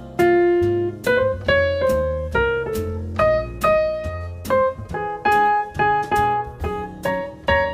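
Background piano music: a solo piano playing a gentle melody over chords, notes struck several times a second and left to ring.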